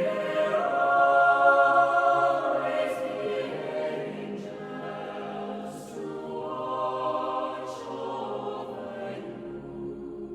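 Choral music: sustained wordless voices in long swelling phrases, loudest in the first two seconds.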